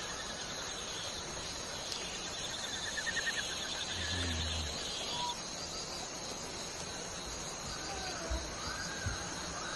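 Outdoor ambience of insects buzzing steadily, with bird calls: a short rapid trill about three seconds in and gliding whistled notes later. There are a couple of soft low thumps near the end.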